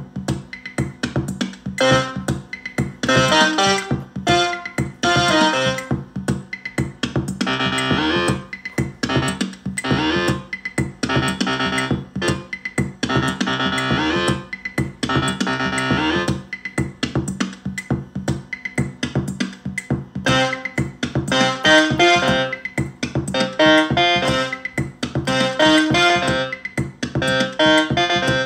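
Korg Volca synthesizers playing a looping step-sequenced pattern: drum-machine hits under a repeating synth bass line, its notes being entered on the Volca Bass's step buttons.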